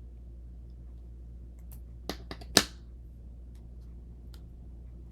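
A few sharp clicks and taps of small hard pieces being handled and picked up from a work surface, the loudest about two and a half seconds in, over a steady low hum.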